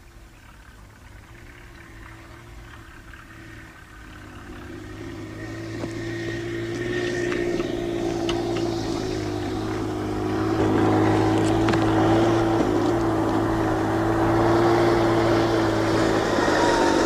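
Car engine approaching on a gravel road, growing steadily louder until it is close by.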